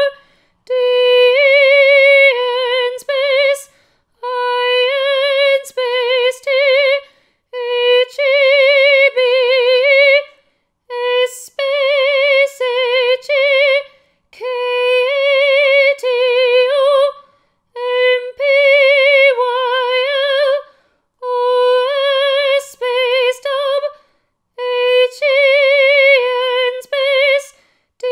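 A woman singing unaccompanied, holding high notes with a wide, even vibrato in phrases of a few seconds each, separated by short breaths.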